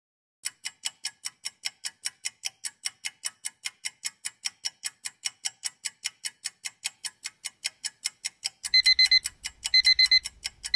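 Countdown timer sound effect: a clock ticking fast and evenly, about five ticks a second. Near the end, as the time runs out, an alarm beeps in high bursts about once a second.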